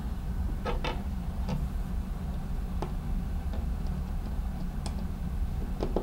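Scattered sharp clicks and taps of a hand screwdriver against a plastic keypad back plate as it is fitted to the wall, two in quick succession about a second in, over a steady low hum.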